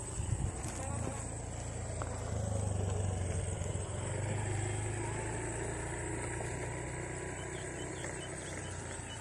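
A motor vehicle's engine passing by: a low hum that swells to its loudest about three to five seconds in and then slowly fades.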